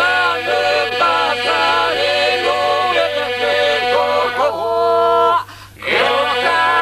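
Albanian iso-polyphonic folk singing by an unaccompanied group of men's voices and a woman's voice, with held drone notes under the moving melodic lines. About five seconds in, the voices hold a chord, break off for a moment, then come back in.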